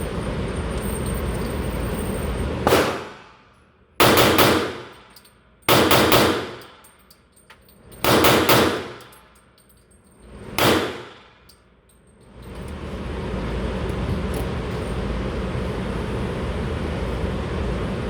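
Glock pistol shots: about five sharp reports a second or two apart, one of them a quick double tap, each ringing off. The steady background noise drops away while the shots are fired and comes back about two seconds after the last.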